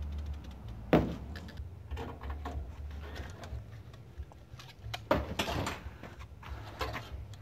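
Handling noises at a wood-and-wire rabbit hutch and its PVC water pipe. There is a sharp knock about a second in, then scattered clicks and a rattling scrape around five seconds in.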